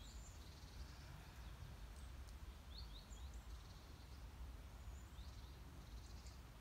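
Faint, short, high bird chirps, a few at a time, with a small cluster about three seconds in, over a steady low rumble of outdoor background noise.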